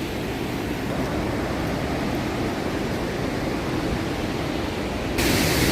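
Rushing water of a large waterfall, a steady noisy rush that suddenly turns louder and brighter about five seconds in.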